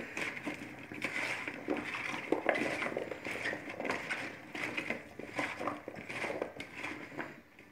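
Diced raw potato cubes being tossed and mixed by hand in a plastic bowl: an irregular run of soft clacks and rustles as the pieces knock together and against the bowl, easing off near the end.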